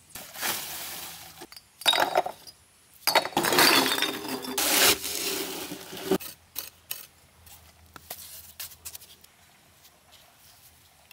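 A shovel scraping into and scooping sand, then a longer, loud hiss of sand pouring from a tipped wheelbarrow about three seconds in. After that come scattered light clicks and taps of bricks being handled and set in mortar.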